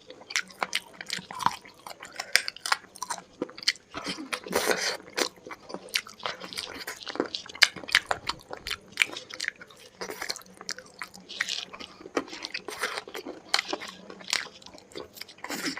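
Close-miked chewing and biting of a meal of chicken curry, rice, chili and onion, with irregular crunchy bites and mouth sounds.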